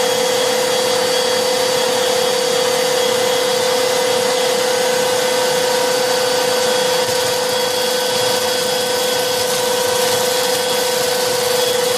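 Two Black+Decker Pivot Vac cordless handheld vacuums, an 18 V and a 20 V model, running together: a steady motor whine over a rush of air.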